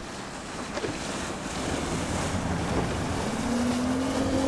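Wind buffeting the microphone and water rushing past a fast-moving inflatable boat. About three seconds in, the steady hum of an outboard motor comes in.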